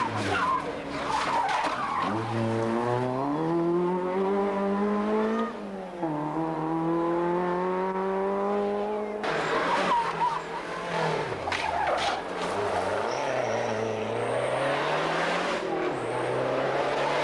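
Rally cars coming through flat out one after another, engines revving hard. The pitch climbs, drops at a gear change about a third of the way in and climbs again. A little past halfway the next car takes over, its engine note falling and rising, with tyre noise on the tarmac.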